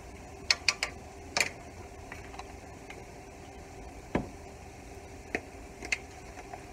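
Butter and diced onion sizzling in a skillet, with a few sharp pops and spits scattered through: four close together in the first second and a half, then single ones about four, five and six seconds in.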